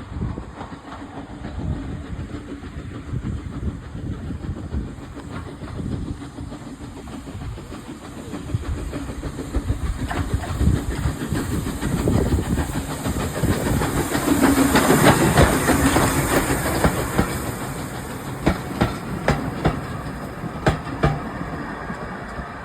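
Furness Railway No.20, an 1863 steam locomotive, passes with its train. The sound builds to its loudest about two-thirds of the way through, then a run of sharp clicks follows as the wheels go over the rail joints.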